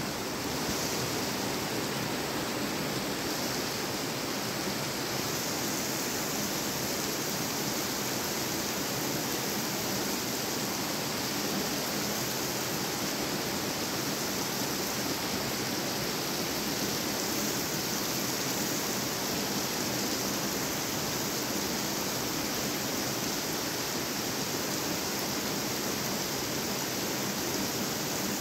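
Heavy rain pouring steadily on a paved car park and parked cars: an even, unbroken hiss of falling drops.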